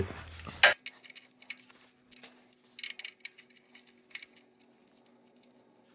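Faint, scattered metallic clicks of a socket wrench being fitted to and turned on an oil pan drain plug, loosening it for an oil change.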